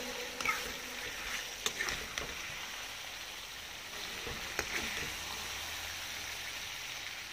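Curry simmering with a steady sizzle and bubble in a metal kadai, while a metal ladle scrapes and clinks against the pan a few times.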